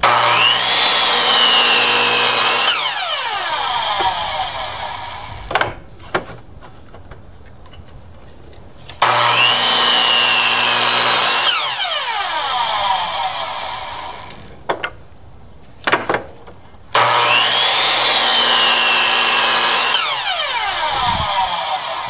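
Electric miter saw started three times, each time running for a few seconds as it cuts through wood, then winding down with a falling whine after the trigger is released. A few short knocks of wood being handled come between the cuts.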